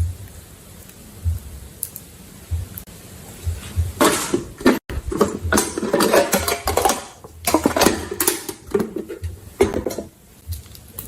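Slime being stirred and squished in a container, with a dense run of crackling, clicking and scraping from about four seconds in that dies away near the end, over occasional low bumps of handling.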